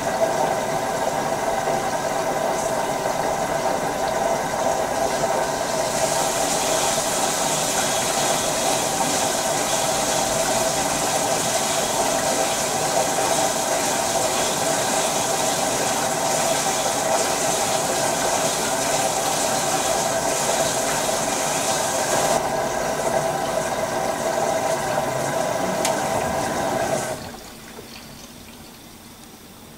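Water running into the drum of an LG VC2 front-loading washer-dryer through its inlet as it fills for the first rinse, a steady rush of water with a steady hum. It stops abruptly near the end.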